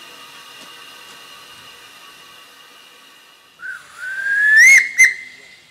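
A steam locomotive whistle blows about three and a half seconds in. The first blast dips and then rises in pitch, and a short second toot follows. Faint steady high tones run underneath beforehand.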